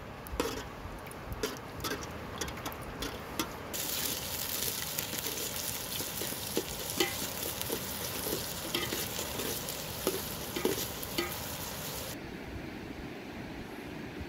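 A metal ladle clinking and scraping in a steel cooking pot of hot melted fat, then from about four seconds in a sizzle as chopped onions fry in the fat, with the ladle knocking against the pot as they are stirred. Near the end the sizzling cuts off, leaving a steady rush of river water.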